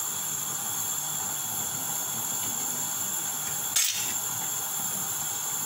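A steady background hiss, with one short scraping tap nearly four seconds in.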